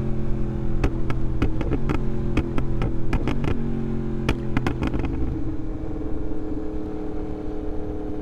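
2024 Yamaha MT-10's crossplane inline-four running through a RaceFit Growler X aftermarket exhaust at a steady note, with a rapid string of sharp pops and crackles over the first five seconds. After that the engine runs on smoothly.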